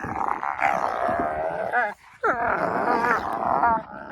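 Wolfdog puppies growling and whining in play, in two long drawn-out bouts with a wavering, sliding pitch and a short break between them.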